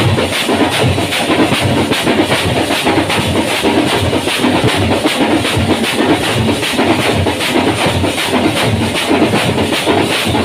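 Several parai frame drums beaten with sticks in a fast, even rhythm, with brass hand cymbals clashing over them, loud and unbroken.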